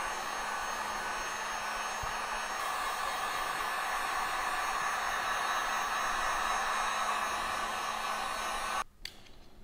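Handheld electric heat gun running steadily, blowing hot air to warm the tank and the adhesive grip pad so the pad turns pliable. The blowing stops abruptly near the end.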